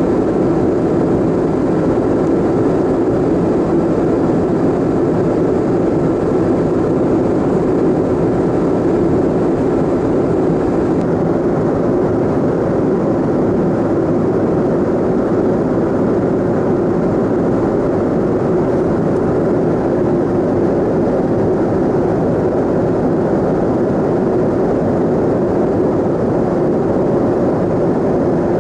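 Steady cabin noise inside a Boeing 747-400 in flight, heard from the upper deck: the constant hum of the jet engines and rushing airflow. The noise holds at one level throughout, and its hiss softens slightly about eleven seconds in.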